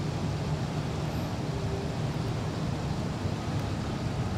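Slow queued road traffic: car engines idling and creeping forward in a steady low rumble.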